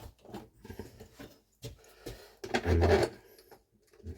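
Hands handling small hardware and the boat's hull: scattered light clicks and knocks, with a louder scraping rub about two and a half seconds in that lasts about half a second.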